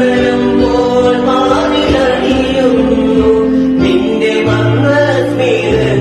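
Music with singing: a voice holding long notes over a steady accompaniment.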